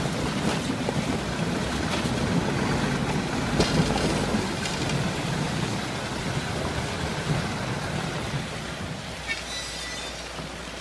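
Heavy truck's diesel engine pulling under load as the truck drives through a shallow icy stream, water splashing and rushing around its wheels. The engine noise drops lower near the end.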